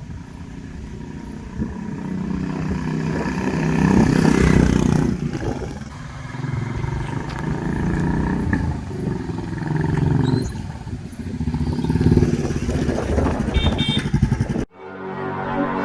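Royal Enfield Classic 350 single-cylinder engine being revved through its exhaust in repeated swells, each rev rising and falling back. Music comes in abruptly near the end.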